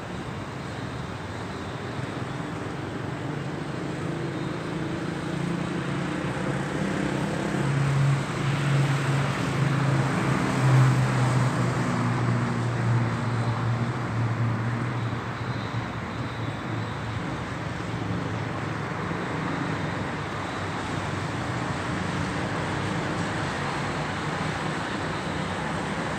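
Road traffic on a city avenue: a steady wash of tyre and engine noise, with a low engine hum swelling as a vehicle passes around the middle, then easing back to the steady background.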